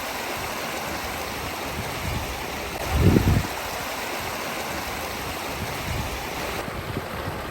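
Water rushing steadily down an artificial waterfall, with a brief low rumble about three seconds in.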